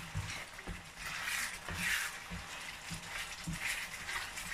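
A spatula stirring and scraping through a thick, simmering pepper sauce in a frying pan: a wet swish about once a second, with soft knocks against the pan.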